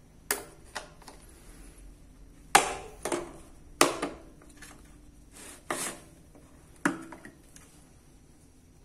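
Steel drill bits clicking and knocking against the moulded plastic case of a Bosch 103-piece bit set as they are pulled from and snapped back into their slots: about eight sharp, irregularly spaced clicks, the loudest around two and a half and four seconds in, stopping about seven seconds in.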